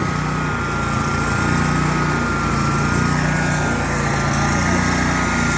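Riding lawn mower's small petrol engine running steadily, with a thin, steady high whine over the engine hum.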